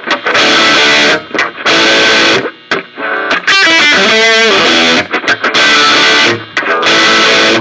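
Electric guitar played through a Behringer V-Tone GM108 15-watt modelling amp: loud strummed chords, each held about a second and cut off sharply, with a quick run of picked notes near the middle.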